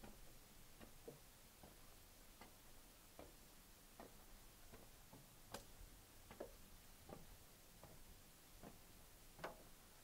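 Faint footsteps of a person walking at a steady pace on a forest trail, about four soft steps every three seconds, over near-silent background.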